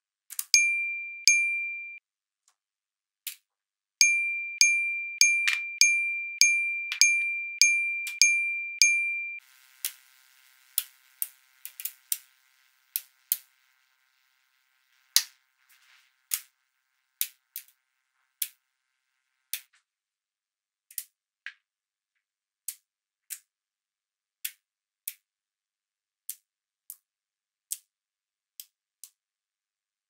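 Small magnetic balls clicking sharply together one at a time as they are placed. In the first nine seconds a run of ringing dings, about two a second, sounds over the clicks; after that the clicks come singly, roughly one a second.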